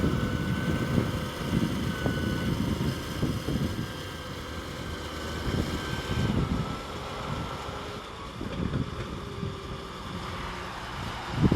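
A heavy machine's engine running, with a faint steady whine that steps in pitch a few times. Wind buffets the microphone.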